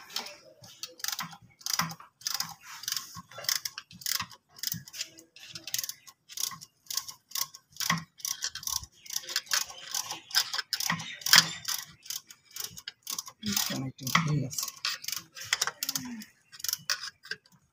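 Hand ratcheting screwdriver clicking in quick, irregular runs as it works screws loose on the underside of a Caterpillar C18 diesel engine.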